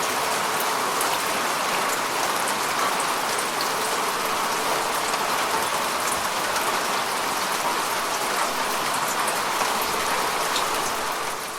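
Steady rainfall: an even hiss of rain with scattered drop ticks, fading out near the end.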